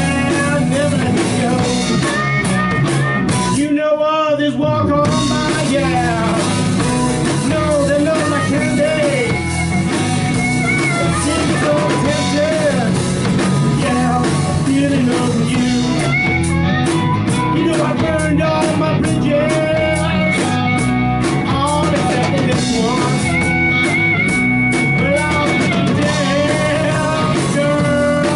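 A live blues-rock band playing: electric guitar, drum kit and harmonica, with long harmonica notes that bend and waver.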